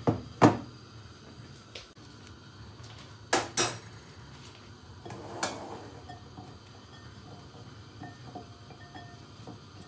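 A few sharp clanks of metal kitchen pots and pans: one about half a second in, two close together about three and a half seconds in, and one more about two seconds later that rings briefly, followed by small faint knocks.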